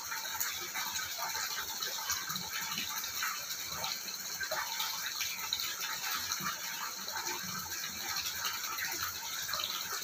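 Water in a stone-lined soaking pool: a steady wash of moving water with many small irregular splashes, drips and lapping as a bather shifts in it.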